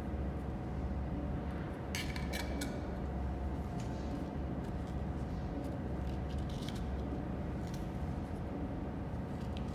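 Light clicks and rustles of a metal button shell and a paper disc being set into the mould of a button maker press, with a cluster of clicks about two seconds in, over a steady low hum.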